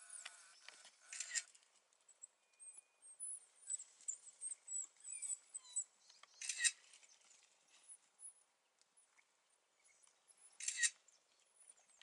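Faint, very high-pitched chirping and twittering calls, with three short harsh, noisy bursts spaced about five seconds apart, the first about a second in.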